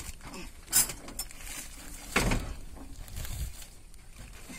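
Knocks and rattling of an excavator operator's seat being handled and set down into the cab, with a sharp knock about a second in and another about two seconds in.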